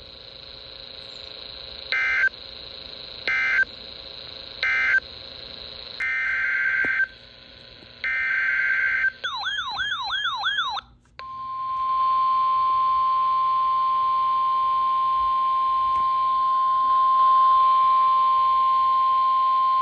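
Emergency Alert System signals between two weather warnings. First three short screeching SAME data bursts mark the end of the previous message. Then come two longer data bursts, a brief warbling tone, and from about eleven seconds in the steady single-pitch warning alarm tone of NOAA Weather Radio, held for about nine seconds, announcing the next warning.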